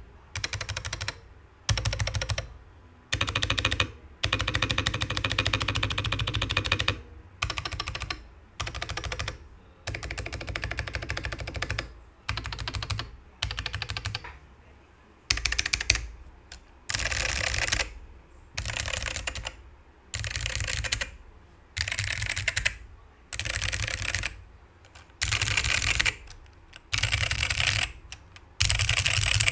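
Typing on a Geonworks Frog TKL mechanical keyboard with lubed black Alps switches on a carbon fibre plate: quick runs of keystroke clicks about a second long, broken by short pauses between them.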